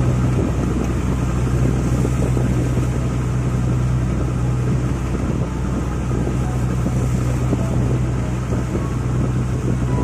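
Fishing boat's inboard engine running steadily with a deep, even hum, over the rush of water along the hull as the boat moves.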